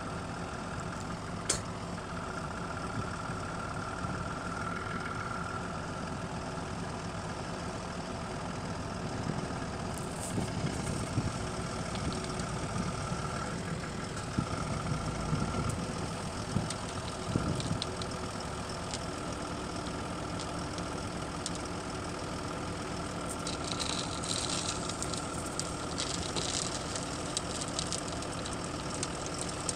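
Semi-truck's diesel engine running steadily at idle while the tipper trailer's body is raised by its hydraulic ram, with a few faint knocks and rattles.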